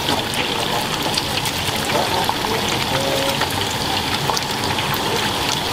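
Soba-shop kitchen noise: a steady rush of water, with scattered light clicks and clatter.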